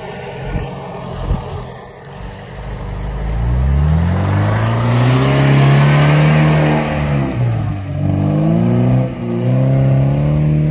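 Off-road 4x4's engine revving hard: the pitch climbs from about three seconds in and is held high under load, drops briefly near the middle, then rises again.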